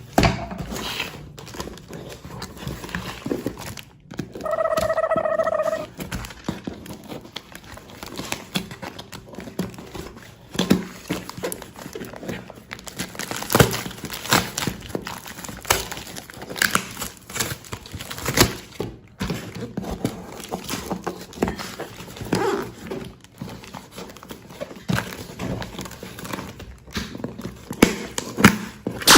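Toy packaging and plastic toy-train parts being handled during an unboxing: crinkling, rustling and scattered clicks and knocks. About five seconds in there is a short steady tone lasting about a second.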